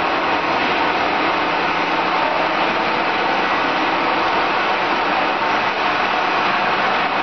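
Automatic bottle filling line running: a steady, even machine noise from the filler and bottle conveyor, with no distinct strokes or changes.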